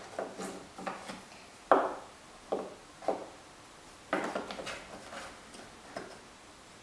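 Jigsaw puzzle pieces being placed and tapped down on a puzzle board and tabletop: a string of short knocks and clicks, the loudest about two seconds in, with a quick cluster of taps around four seconds.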